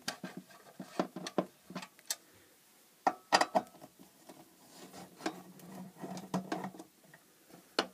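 Irregular small clicks and knocks of hands handling and working apart a thin metal LED floodlight case, in several short clusters.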